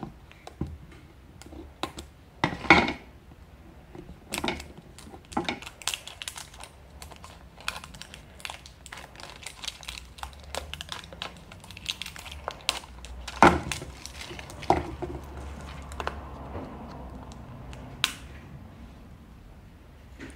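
Toy blind-bag wrappers being torn open and handled, crinkling and crackling irregularly, with a few louder rustles.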